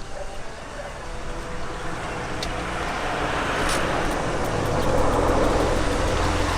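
A motor vehicle's engine and tyre noise drawing closer, growing steadily louder through the first few seconds and then staying loud.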